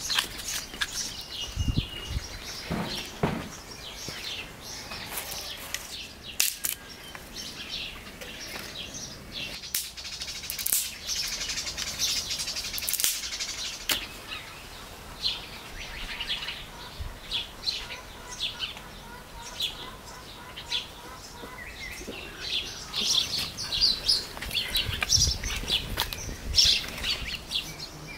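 Small birds chirping and calling, with many short high chirps and a run of repeated notes near the middle. A few soft clicks and knocks come in between.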